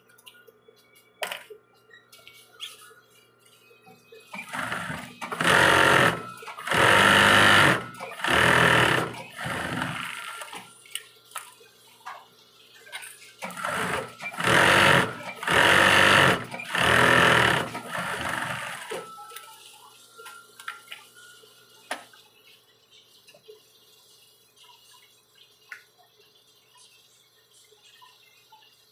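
Juki industrial sewing machine stitching in short runs: a group of bursts starting about four and a half seconds in and another from about fourteen seconds in. A steady faint motor hum runs between the runs, along with small clicks.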